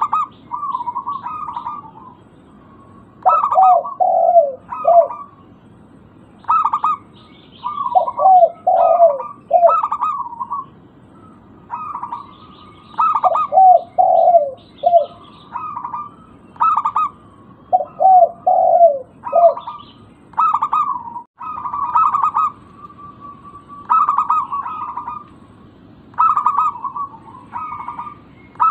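Zebra doves (local perkutut) cooing: repeated phrases of quick, staccato coo notes, some higher-pitched and some lower, each phrase lasting a second or two with short gaps between.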